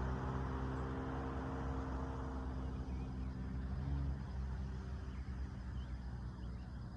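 A motor vehicle's engine idling with a steady low hum; the hum weakens about four seconds in.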